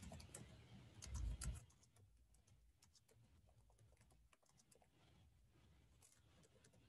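Faint clicking of computer keyboard keys being typed, in quick irregular runs, with a dull low thump about a second in.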